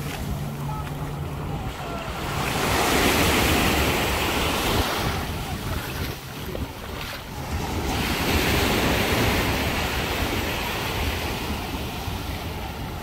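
Small sea waves breaking and washing up a sandy shore, the surf swelling a few seconds in and again just past the middle, with wind rumbling on the microphone.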